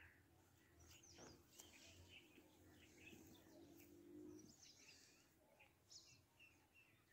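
Near silence: faint, scattered high chirps of birds, with a faint steady low hum that stops about four and a half seconds in.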